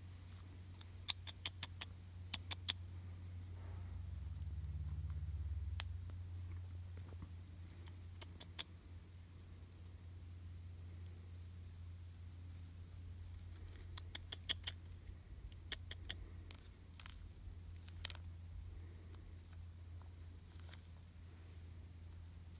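Peanuts in the shell clicking together in a hand as an eastern chipmunk takes them: small clusters of light, dry clicks, several times. Underneath runs a steady low hum and a faint pulsing insect chirr.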